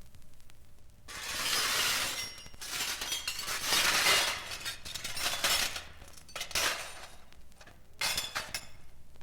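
Glass breaking and shattering in a series of crashes with tinkling fragments. The longest crash comes about a second in, and a last, shorter smash comes near the end.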